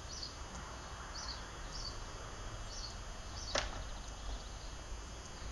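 A small bird chirping repeatedly, short high chirps about every half second, over a steady low rumble. One sharp click sounds about three and a half seconds in.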